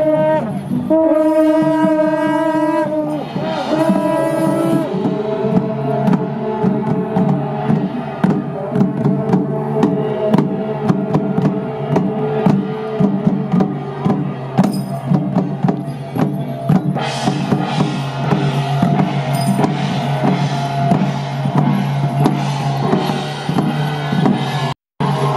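Long straight brass processional horns (shaojiao) sounding about three long single-note blasts, followed by a steady, busy beat of rope-tensioned drums with clashing cymbals and hand gongs.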